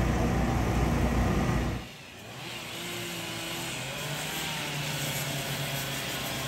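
Steady mechanical hum like running engines, loud at first and cutting off abruptly about two seconds in. A quieter, steady engine-like drone with a faint higher note follows.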